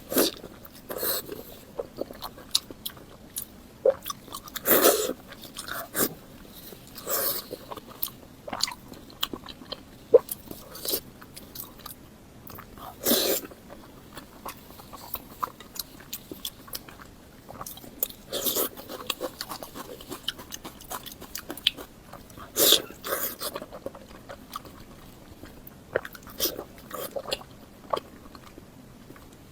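Close-miked eating: a person chewing and biting, with irregular wet mouth smacks and clicks every second or so.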